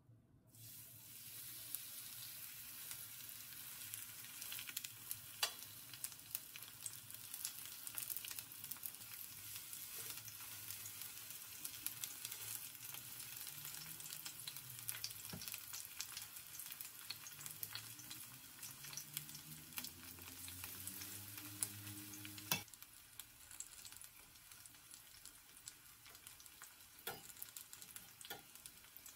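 Vegetable fritters frying in hot oil in a stainless steel frying pan: a steady sizzle that starts about half a second in as the batter goes into the oil, with scattered clicks of a metal spatula against the pan. A sharp knock comes near the end, after which the sizzle is quieter.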